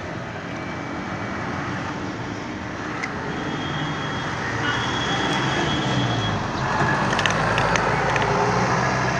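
Steady city road traffic, with a passing vehicle's low rumble building up in the second half.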